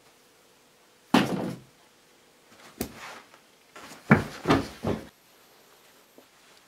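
A series of knocks and thumps: one loud one about a second in, a sharp knock near three seconds, then three thumps in quick succession around four to five seconds.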